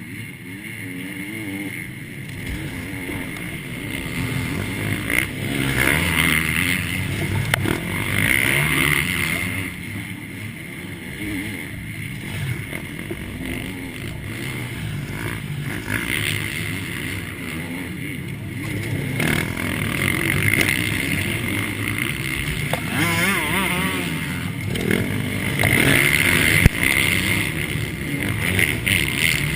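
MX2 motocross bikes racing, engines revving up and down as riders accelerate and pass, the sound swelling and fading every few seconds.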